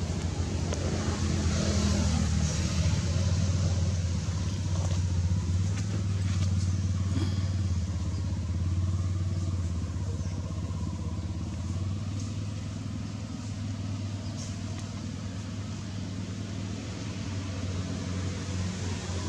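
A motor vehicle's engine running, a steady low hum that holds loud for the first several seconds and then slowly fades.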